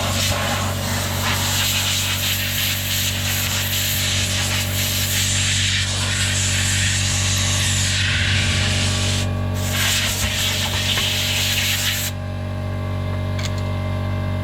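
Power tool running steadily while an abrasive scrapes the bead seat of an alloy wheel rim, cleaning it so the tyre will seal; the scraping eases briefly about nine and twelve seconds in.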